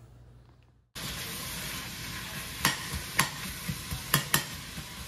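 Sliced sweet onion and green onions sizzling steadily as they fry in a stainless steel pot. A metal spoon stirs them and clicks sharply against the pot several times. The sizzle starts abruptly about a second in, after near silence.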